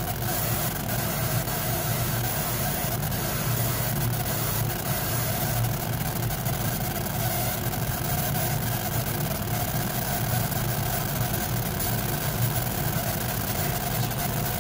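Laser engraving machine running with a steady mechanical hum from its fans and air extraction, which draw off the smoke from the burnt wood.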